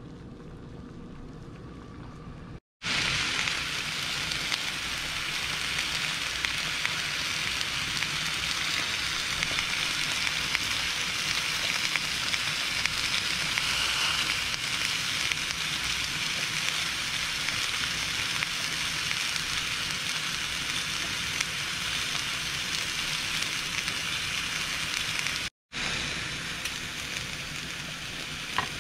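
Marinated chicken breasts sizzling on a hot stovetop grill pan, a steady loud hiss. The sound is quieter for the first few seconds and cuts out briefly twice, about three seconds in and near the end.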